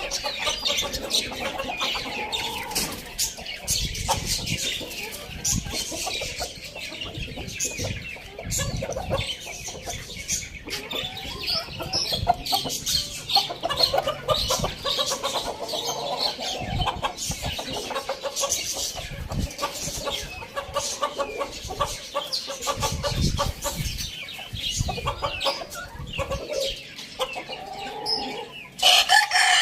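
Chickens clucking and calling continuously, with many short clicks mixed in, and a loud rooster crow starting near the end.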